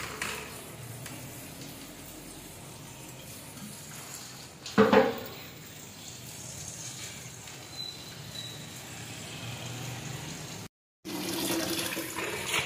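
Kitchen tap running steadily into a steel pot of cut ash gourd cubes in the sink as hands stir and rinse the pieces in the water, with one brief louder knock about five seconds in.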